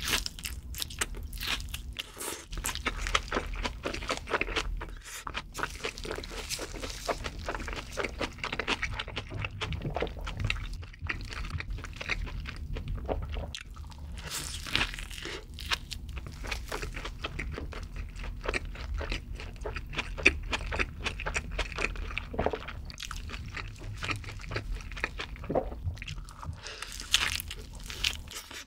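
Close-miked eating sounds: a handmade burger being bitten and chewed, with dense, irregular crunching and crackling throughout.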